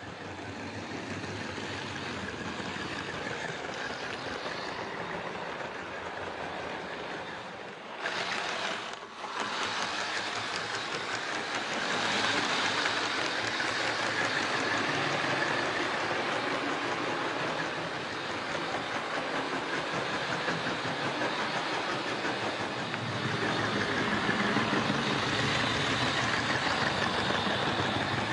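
Model diesel train running along the layout track, a Piko BR110 locomotive hauling container wagons. A steady running noise swells louder about twelve seconds in and again near the end as the train passes close, with a brief dip about eight seconds in.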